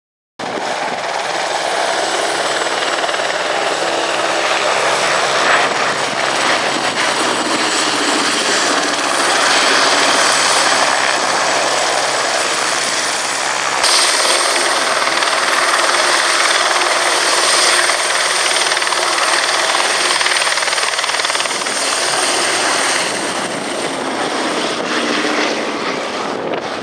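Boeing B-17G Flying Fortress's four Wright R-1820 Cyclone radial piston engines running steadily in flight as the bomber flies past, cutting in suddenly about half a second in.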